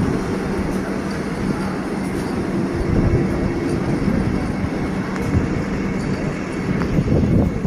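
Vande Bharat Express electric multiple-unit train passing close by: a loud, steady rumble of its coaches' wheels on the rails.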